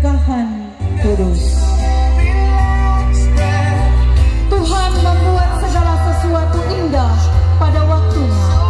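Song with a singing voice over a heavy bass line; the music dips out for a moment just under a second in, then carries on.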